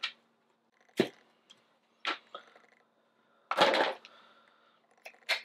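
Handling sounds of a skirted marlin trolling lure and its vinyl skirts on a plastic cutting mat: a few brief knocks, with a longer rustle a little past halfway as the lure is laid down.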